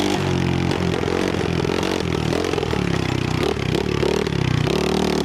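Trailmaster 125 pit bike's 125cc single-cylinder engine under riding load, the revs rising and falling several times as the throttle is worked.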